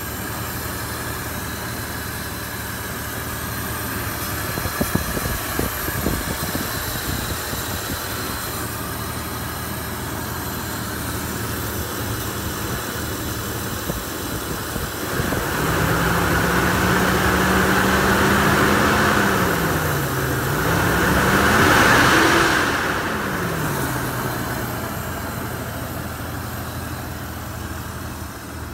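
A 2000 Toyota 4Runner's 3.4-litre V6 idling steadily. From about halfway through it is revved by hand at the throttle: the pitch rises and holds, dips, climbs to a second higher peak, then falls back to idle.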